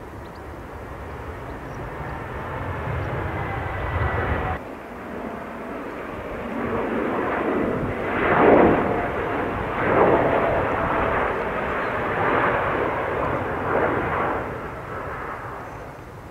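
Jet noise from a Boeing 787 Dreamliner's twin turbofan engines as the airliner flies a low, banking display pass, with a faint engine whine over the roar. It grows louder, cuts off abruptly about four and a half seconds in, then comes back in several swells before fading near the end.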